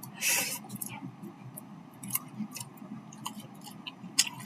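Someone eating spicy noodles: a short hiss of air sucked in through the mouth just after the start, then scattered small wet clicks of chewing.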